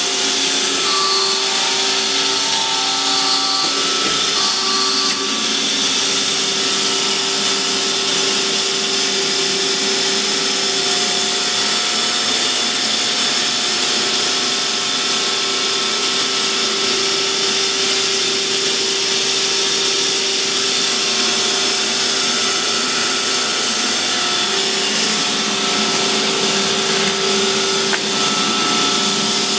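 Strippit LVD hydraulic press brake's hydraulic pump and motor running steadily: an even hiss with a constant pitched drone through it, no ram strokes.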